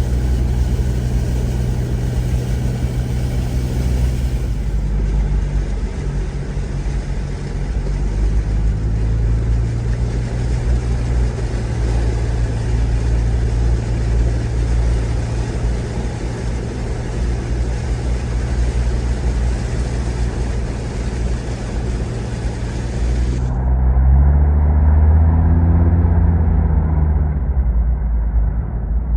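Motor vehicle engines running under a steady hiss, the engine pitch shifting a couple of times. Near the end the hiss cuts off suddenly, and an engine revs up and back down.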